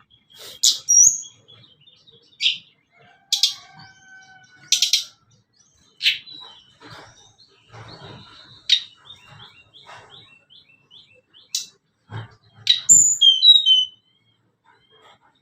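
Tledekan gunung singing: short, sharp chirps and whistles broken by a run of quick repeated notes in the middle, with the loudest burst of calls near the end.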